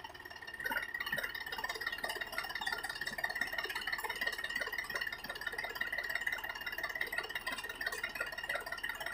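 Sonalika DI-35 tractor's diesel engine running under heavy load with a steady buzzing rattle as it strains to pull a sand-laden trolley out of soft mud.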